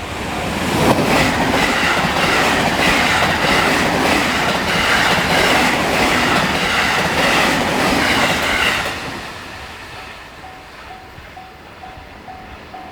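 A train on the JR Kobe Line passing close by, its wheels clacking rhythmically over rail joints for about eight seconds before fading. The level-crossing bell's repeated ding is heard again near the end.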